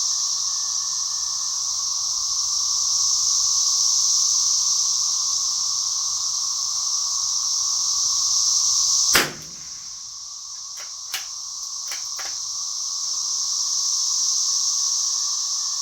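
Cicadas droning steadily and loudly throughout. About nine seconds in, a single sharp .22 LR rifle shot cracks out, followed over the next few seconds by a few light clicks.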